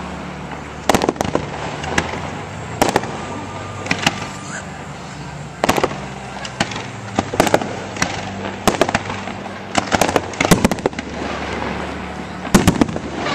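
Aerial firework shells bursting in a display: more than a dozen sharp bangs at irregular intervals, some coming in quick pairs and clusters.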